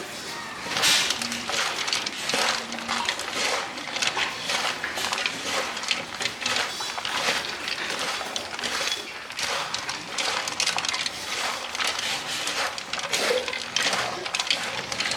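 Continuous rapid clinking and clattering of small hard objects, many sharp knocks a second.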